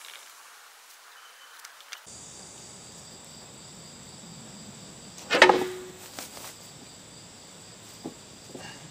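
Heavy metal clank with a short ring about halfway through as the Vernon lathe's carriage and apron assembly is handled and set down, then a few lighter knocks. Insects chirp steadily in the background.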